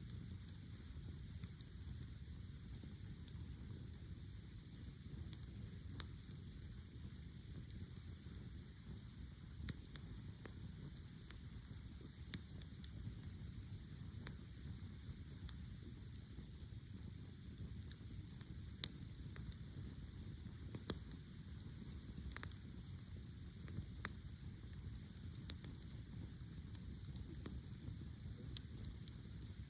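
Crickets chirring in a steady, high-pitched chorus, with a few sharp pops from a crackling campfire, the loudest about two-thirds of the way through.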